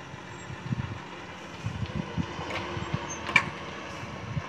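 Loaded dump truck's diesel engine rumbling as the truck manoeuvres slowly, with a few short clicks or knocks, the sharpest about three seconds in.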